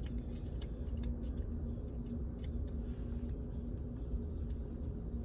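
Steady low rumble with a faint hum, and a few light clicks and taps scattered through it.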